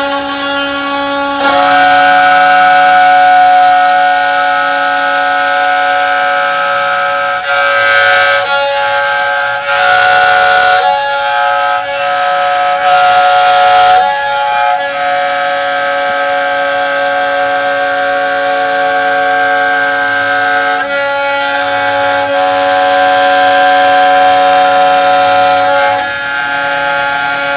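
CNC router spindle whining at high speed as it cuts wood, with a steady high pitch and rough cutting noise; the sound swells and changes tone every few seconds as the cut load changes.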